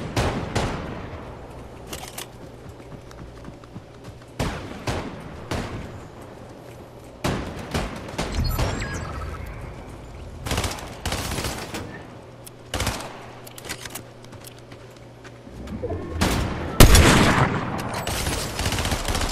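Shotgun blasts, about eight of them a few seconds apart, each sharp bang trailing off in a short ring, the loudest near the end. A low steady hum runs underneath.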